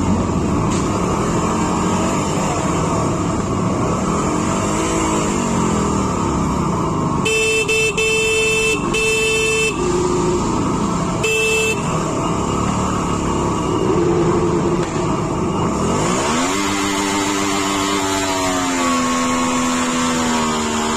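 A small vehicle's engine running under way, its pitch rising and falling as it accelerates and shifts. About seven seconds in a vehicle horn sounds three short blasts, then once more a second later. Near the end the engine revs up and holds a steady pitch.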